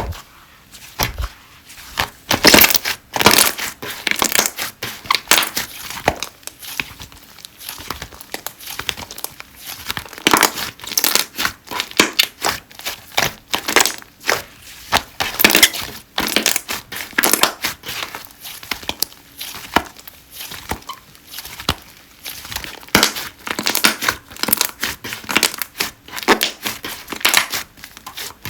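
Slime being squeezed, stretched and poked by hand, giving a dense, irregular run of sticky pops and crackles.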